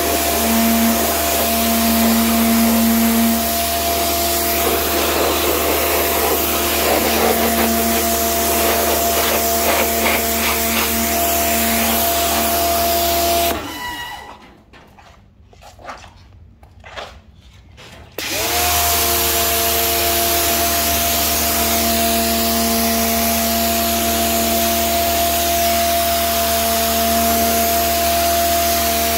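Pressure washer running with a steady motor whine and hum under the hiss of its spray on concrete. About halfway through it cuts off suddenly, stays quiet for about five seconds, then starts up again with a brief rising whine and runs on steadily.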